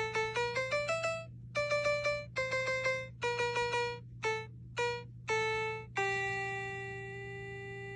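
Music: a simple melody of single ringing keyboard-like notes that climbs at the start, then repeats notes, and ends on one long held note from about six seconds in, over a steady low hum.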